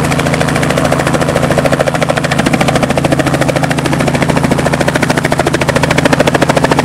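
Robinson R44 helicopter in flight: its piston engine and rotors make a steady low hum with a rapid, even beating.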